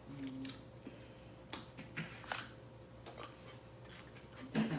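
Faint, scattered clicks and taps from people eating a meal, several sharp ones a second or so apart, over a quiet room hum.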